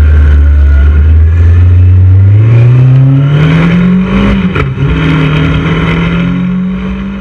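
Motorcycle engine accelerating, its pitch climbing steadily for about four seconds, dipping briefly at a gear shift, then holding steady before fading out near the end.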